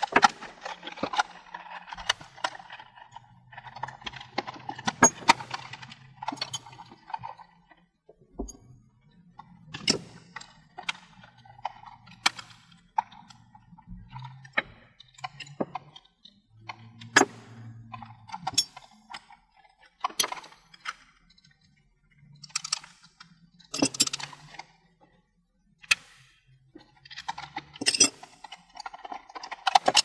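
Handling noise from assembly work: irregular clicks, taps and clinks of small tools and metal parts against a clear plastic bottle, with stretches of softer rubbing and scraping between them.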